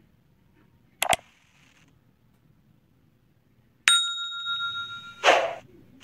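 Sound effects for an animated subscribe-button graphic: a short double click about a second in, then a bright bell ding near four seconds that rings for over a second, followed by a short whoosh near the end.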